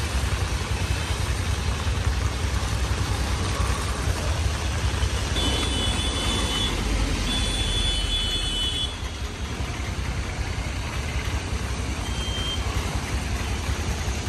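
Heavy rain hissing down on a wet street, with motor traffic passing over the flooded road. Several short high-pitched beeps sound about five to eight seconds in, and one more near the end.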